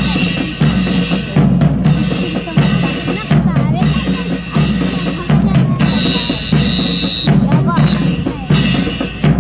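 Marching drums beating a steady march cadence, with bass drum and snare strokes and sharp rim strikes, played by a drill team as it marches. A short high steady tone sounds about six seconds in.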